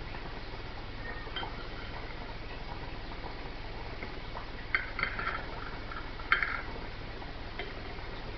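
Kitchen utility knife slicing cheese, the blade clicking against the cutting surface in a short cluster about five seconds in and once more a little after six seconds, over a steady background hiss.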